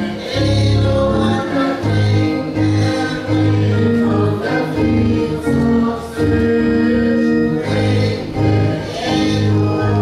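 Church congregation singing a gospel hymn with instrumental accompaniment: held sung notes over a steady, pulsing bass beat.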